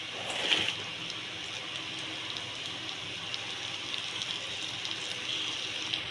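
A hot pan sizzling steadily as handfuls of shredded cabbage are dropped in, with a louder rush about half a second in and light crackling ticks.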